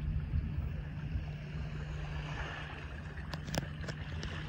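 Sailboat under way: a steady rush of wind and water with a constant low hum underneath, and a few sharp light clicks a little past three seconds in.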